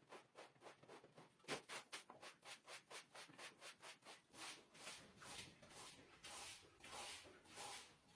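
Faint, rhythmic back-and-forth scrubbing strokes on carpet, about four a second at first and slowing to two or three a second near the end.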